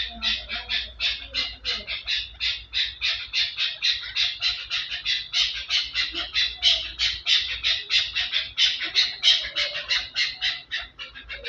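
Birds squawking in a rapid, unbroken run of short, harsh calls, about five a second.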